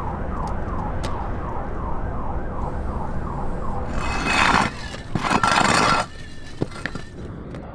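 A distant emergency-vehicle siren yelping, about three sweeps a second, over low traffic rumble; it stops about four seconds in. Then come two loud bursts of hiss, the second longer, and a couple of sharp clicks.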